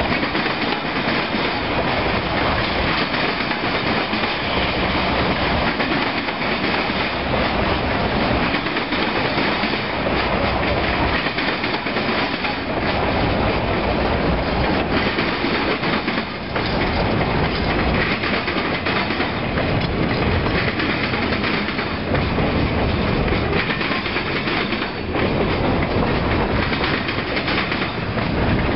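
A freight train's cars rolling past close by: ballast hoppers and gondolas, their steel wheels running on the rails and clacking over the rail joints in a steady, continuous noise.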